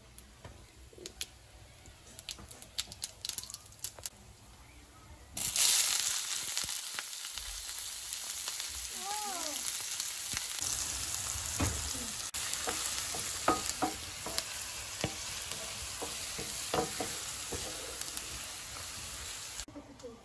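Chopped red onion and green chilies frying in hot coconut oil in a nonstick pan: after a few light clicks, a loud sizzle starts suddenly about five seconds in and carries on, with a few knocks as a wooden spatula stirs, then cuts off abruptly near the end.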